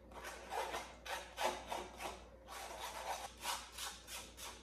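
Dry flour and cocoa being sifted through a handheld fine-mesh sieve over a glass bowl: quick rhythmic strokes of the powder rubbing through the wire mesh, about four a second.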